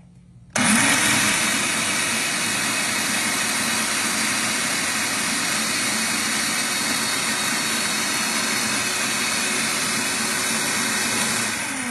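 Electric food processor switched on about half a second in, spinning up with a rising whir and running steadily as its blade purées thick basil pesto, then winding down with a falling pitch near the end.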